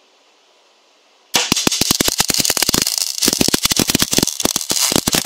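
MAG welding torch of a home-built metal 3D printer striking its arc about a second in and laying down a steel weld bead: loud, rapid, irregular crackling and popping.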